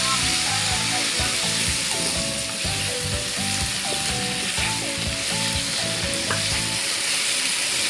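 Cubed potatoes frying in a wok with a steady sizzle, stirred and turned with a plastic spatula from about halfway through.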